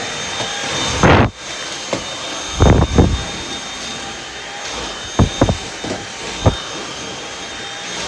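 Dyson V7 cordless stick vacuum running with a replacement floor brush head: a steady rush of air with a high motor whine, broken by several short knocks.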